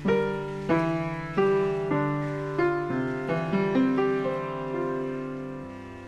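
Background piano music: a slow melody of single struck notes, each ringing and fading, which thins out and softens near the end.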